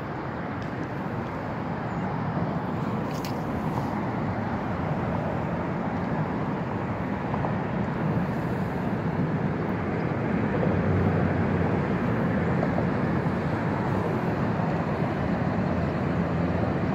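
Steady rushing noise with no distinct events, a little louder from about ten seconds in.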